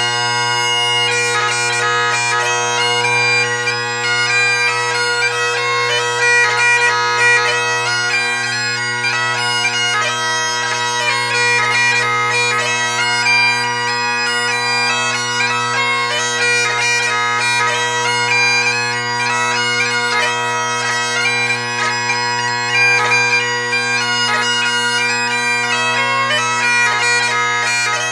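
Great Highland bagpipe music: a fast melody on the chanter over steady, unbroken drones.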